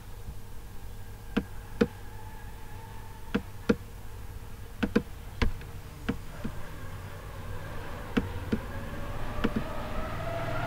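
Computer mouse clicking: about a dozen sharp clicks, some in quick pairs, over a steady low hum.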